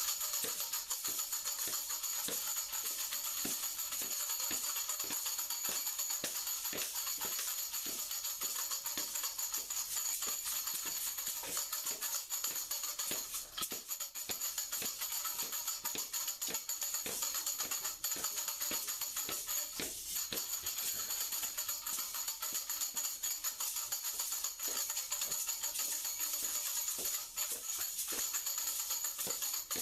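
Music with jingling hand percussion and a steady beat, starting suddenly.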